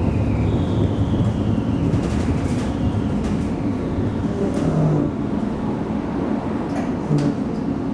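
Alstom Citadis tram running along street track, heard from the cab: a steady rumble of wheels on rails, with a faint falling whine in the first second and a half and a few short clicks.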